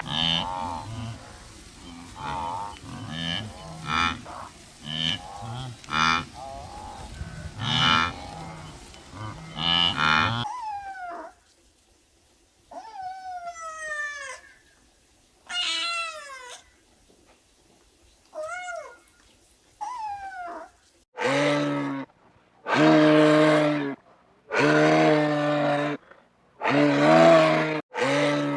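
A run of farm animal calls. First about ten seconds of many overlapping calls. Then, from about ten seconds in, a kitten meowing, with short falling meows a second or two apart. Near the end comes a series of loud, deep calls of a larger farm animal, each about a second long.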